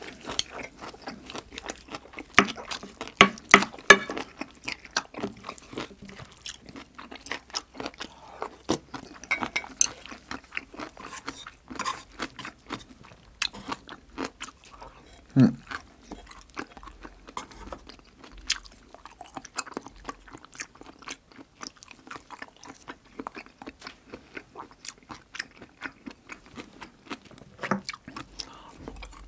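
Close-miked chewing of jjajang rice and Korean side dishes: wet mouth sounds and crunching in quick irregular strokes. The crunches are loudest in the first few seconds.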